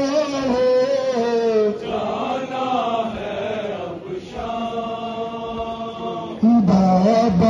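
Male voices chanting a nauha, a Shia mourning lament, in long held, slowly bending notes. A louder phrase comes in near the end.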